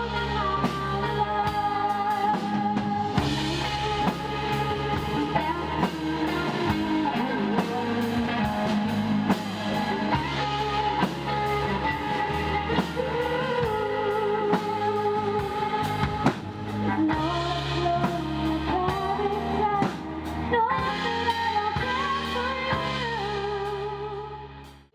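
Live band performance: a woman singing a wavering melody over electric and acoustic guitars and a drum kit, with steady drum hits. The music drops away sharply at the very end.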